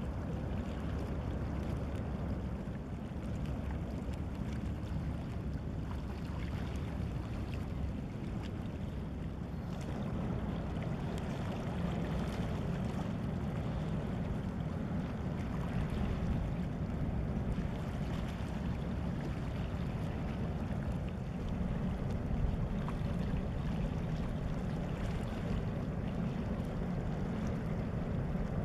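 Steady low rumble of a small passenger motor vessel running past on the water, mixed with the wash of water and wind noise.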